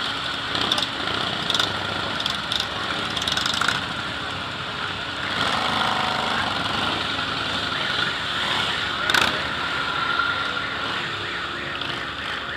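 Motorcycles, mostly cruisers, riding slowly past one after another with their engines running at low revs. A few short sharp clicks come in the first few seconds, and a sharper knock about nine seconds in.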